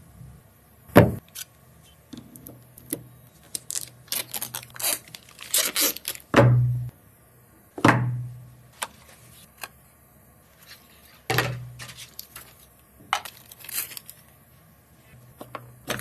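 Unboxing handling sounds: packaging rustled and torn, with clicks and several dull thumps as the box and its contents are handled and set down.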